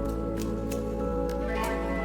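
Soft new-age background music: sustained tones over a steady low bass, with light clicks every few tenths of a second.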